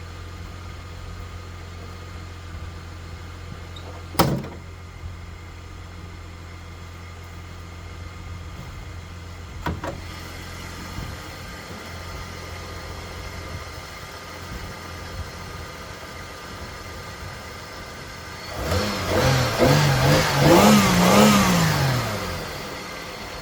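Holden VY Commodore engine idling steadily, with two sharp knocks about four and ten seconds in. Near the end it is revved several times, its pitch rising and falling, the loudest part, before it settles back to idle.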